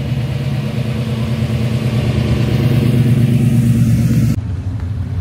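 A car's engine running as the car drives out past, growing louder, with the engine note holding steady. The sound breaks off suddenly just past four seconds in.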